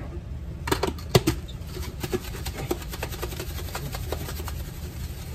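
Plastic container of compacted sugar being knocked and shaken over a pot: a few sharp taps about a second in, then light scraping and ticking as the sugar works loose.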